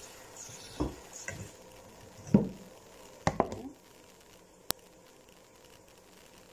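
Objects being handled in a kitchen: several dull knocks and clatters, the loudest about two and a half seconds in, then one sharp click about a second later.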